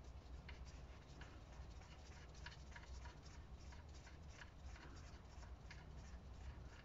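Faint, irregular light clicking, several clicks a second, as the 19 mm sump plug on the oil pan of a VW Tiguan 2.0 TDI is worked loose by hand and socket, just before the engine oil drains. A low steady hum lies underneath.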